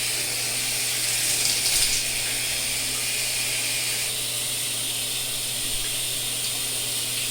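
Water spraying steadily from a StoneStream shower head on its gentle setting, an even hiss that surges briefly about a second and a half in. A steady low hum runs underneath.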